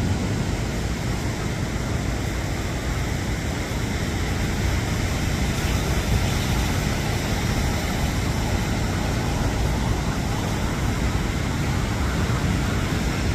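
Steady rush of ocean surf on a sandy beach, an even noise without distinct breaks.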